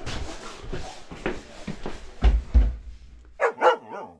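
Knocks, rustles and footfalls of someone moving about a small room, with two heavier thumps a little past two seconds in. Near the end a dog barks twice in quick succession.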